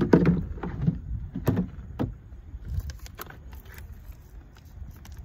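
Plastic cooler lid being put on and closed: a loud knock at the start, then a few sharper clicks and knocks over the next three seconds, over a steady low rumble.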